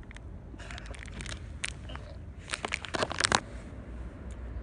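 Hard candy being crunched between the teeth: clusters of sharp cracking clicks about a second in, and a louder cluster near three seconds in.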